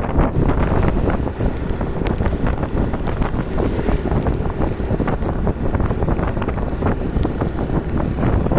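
Wind buffeting the microphone with a steady low rumble, and light rain drops ticking throughout.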